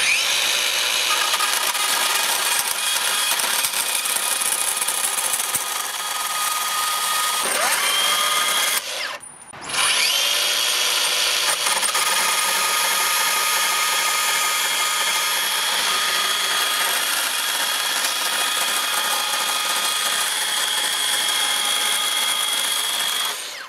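Makita XGT PB002G 40V brushless portable bandsaw running at top speed, its used blade cutting through a metal reciprocating-saw shoe with a steady whine over a grinding rasp. The saw stops briefly about nine seconds in, spins back up, and stops near the end. The cut blunted the blade quickly, which the owner thinks may be from the loose shoe vibrating at top speed and damaging the teeth.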